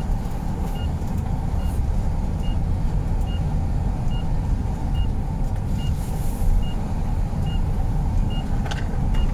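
A motor vehicle's engine running with a steady low rumble, while a reversing warning sounds short high beeps at an even pace, a little more than one a second.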